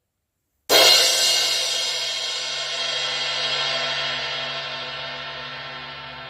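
A 16-inch Omete Mercury Crash cymbal struck once, about a second in, then left to ring out in a long wash that slowly fades.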